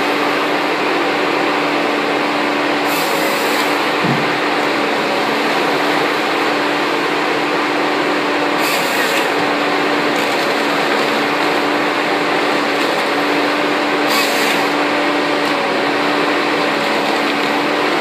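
Forestry harvester running at work: a steady machine drone with a constant whine that drops out briefly now and then, and three short rushes of hiss about three, nine and fourteen seconds in.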